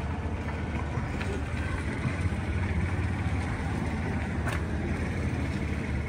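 A steady low engine rumble under outdoor background noise, with a faint tick about a second in and another after four seconds.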